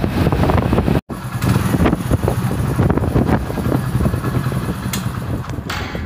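Strong wind buffeting the microphone of a moving Hero motorcycle, with the motorcycle's engine and road noise underneath. The sound drops out for an instant about a second in.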